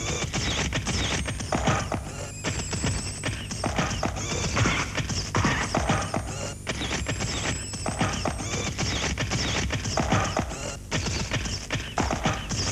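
Advertising jingle music with a quick, clopping percussion beat.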